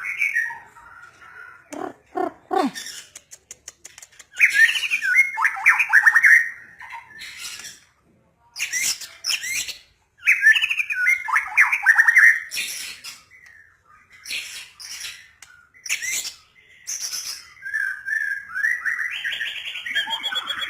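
White-rumped shama (murai batu) singing: loud phrases of whistled notes and fast trills broken by short pauses, mixed with sharp chattering notes, and a few low notes about two seconds in.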